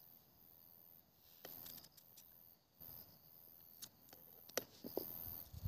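Faint, irregular clicks and taps of a knife cutting vegetables on a board, with a few louder knocks near the end. Under them runs a steady high chirring of forest insects.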